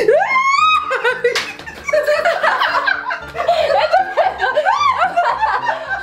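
Women laughing and squealing with excitement, opening with a steeply rising squeal, over background music with a bass line.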